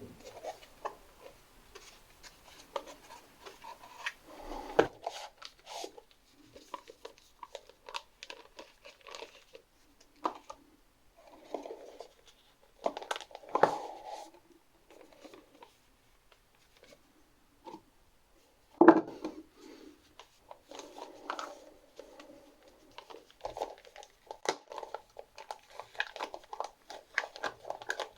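Packaging being handled and unwrapped: intermittent crinkling and tearing with scattered clicks, and a few sharper knocks at about 5, 13 and 19 seconds in.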